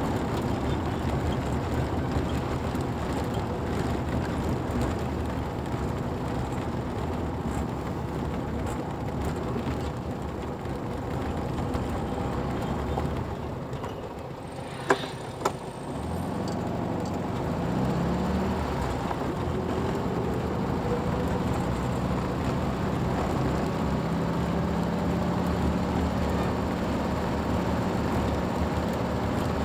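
Car driving, with steady engine and road noise. About halfway through it eases off and quietens, two sharp clicks sound, then the engine note climbs and holds steady as the car picks up speed again.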